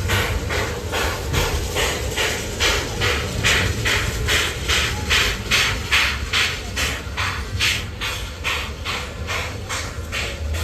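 Narrow-gauge steam locomotive working uphill, its exhaust chuffing in an even beat of about two to three chuffs a second over the low rumble of the train.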